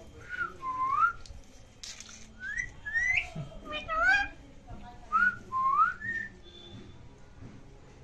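Clear whistling in three short runs, each made of quick dipping and rising whistled glides: one just after the start, a busier run around the middle, and another about three-quarters through.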